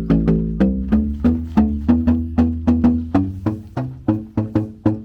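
A PVC plastic tapping instrument struck by hand in quick succession. It gives about three to four short pitched notes a second, moving up and down between several pitches like a simple tune.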